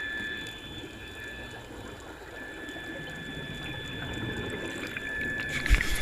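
Water noise, a steady gurgling wash under a steady high-pitched whine, with a few sharp knocks and low thumps near the end.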